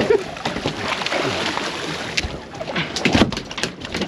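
Wind and water noise aboard a fishing boat at sea, with scattered knocks and clicks from handling on deck.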